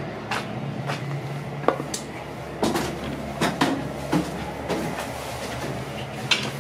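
Footsteps climbing the metal steps into a railway passenger car's vestibule and crossing its steel diamond-plate floor, with a scattering of sharp knocks and clunks. A steady low hum runs underneath.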